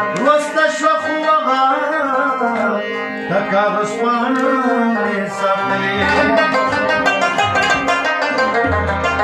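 Pashto ghazal played on harmonium, rubab and tabla, with a man singing the melody in places. Low tabla strokes come about six seconds in and again near the end.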